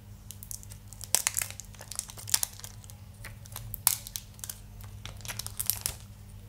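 Protective plastic film being peeled off a new smartphone: irregular crinkling and crackling, with sharp snaps about a second in, about two seconds in and again near four seconds.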